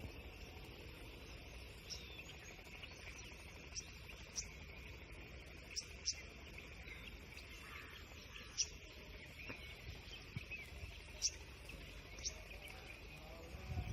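Outdoor nature ambience: a steady insect drone with short, scattered bird chirps over a low rumble.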